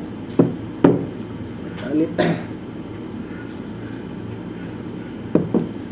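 Someone drinking water: a few short clicks and swallowing sounds, two close together near the end, over a faint steady hum.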